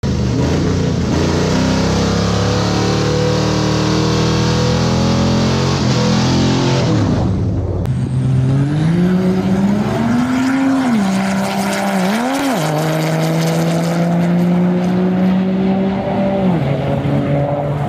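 Diesel pickup truck making a full-throttle drag-strip pass. After several seconds of loud, dense engine noise, the engine note climbs and dips sharply twice at gear shifts. It then holds steady and drops away near the end as the throttle lifts.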